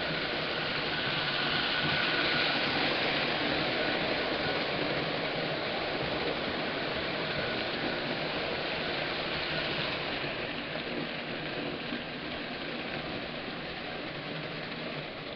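Marx and Lionel toy trains running on O27 three-rail tubular track: a steady rolling rumble of wheels and electric motors, slowly getting quieter near the end.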